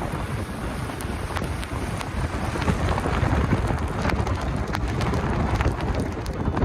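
Storm noise: strong wind buffeting the microphone with a low rumble, and a dense scatter of sharp hits like heavy precipitation striking surfaces.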